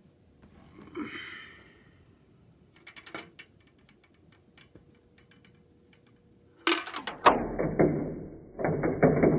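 Faint clicks and clatter of marbles and plastic marble-run pieces being handled. About two-thirds of the way in, louder background music with plucked strings starts and becomes the main sound.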